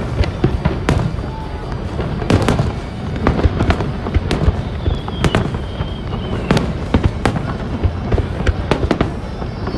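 Fireworks display: aerial shells bursting one after another in quick succession, sharp bangs over a continuous din.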